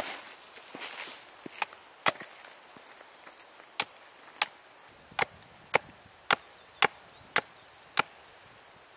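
Small hunting axe chopping the end of a birch branch against a wooden chopping block to carve a point: about a dozen sharp chops. The chops are lighter and uneven at first, then fall steadily at about two a second from about halfway through.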